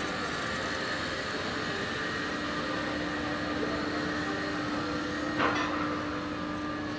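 Steady drone of a coastal cargo ship's engine and machinery, with a constant hum, and one short knock about five seconds in.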